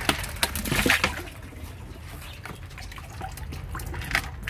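Water poured from a bucket into a glass aquarium tank, splashing into the water already in it. It is loudest in the first second, then settles into a lighter pouring trickle with scattered drips.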